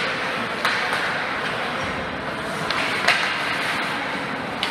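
Game noise in a large indoor venue: a steady wash of crowd noise with a few sharp knocks from play, about a second in and again near three seconds.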